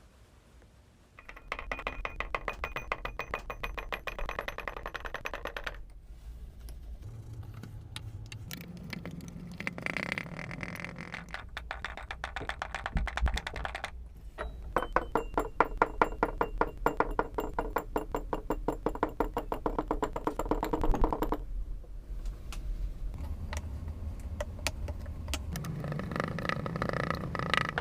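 Background music with sustained chords that change every few seconds, over a dense, rapid clicking.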